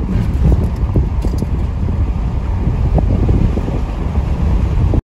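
Pickup truck driving on a gravel road, heard from inside the cab: a steady low rumble of tyres on gravel mixed with wind noise. It cuts off suddenly near the end.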